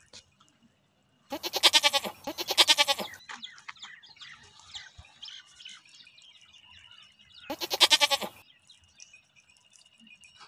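Sheep bleating: two quavering bleats in quick succession about a second in, and a third near the end.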